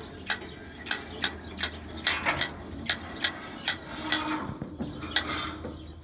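Old John Deere 24T hay baler's mechanism being turned over without a tractor, giving a string of sharp metallic clicks and clacks about two or three a second. The baler had sat frozen up for years and still has one stiff spot after its plunger wear parts were sanded and greased.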